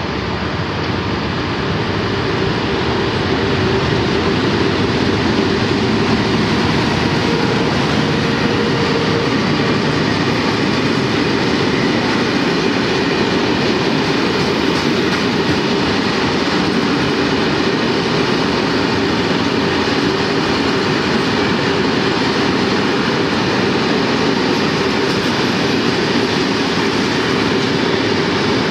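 Freight train running past at speed, a steady loud rumble of steel wheels on rail that builds over the first few seconds and then holds.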